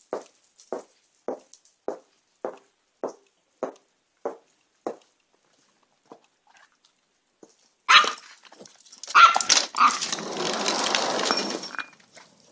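Yorkshire terrier barking in short, evenly spaced barks, a little under two a second, which stop about five seconds in. Near the end, a sharp clatter and a few seconds of rushing noise as the door is opened.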